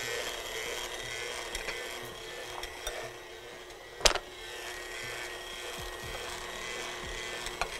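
KitchenAid Ultra Power stand mixer running steadily, beating the cheesecake mixture, with one sharp click about four seconds in.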